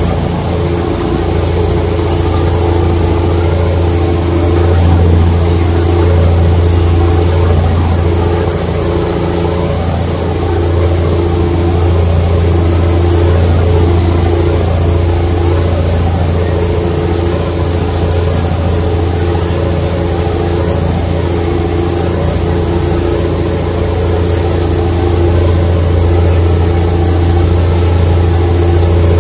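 A ferry's engine running steadily with a constant low drone, with an even hiss over it.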